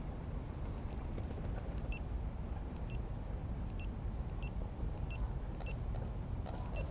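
Steady low outdoor rumble, with a series of short high chirps repeating about once a second from about two seconds in.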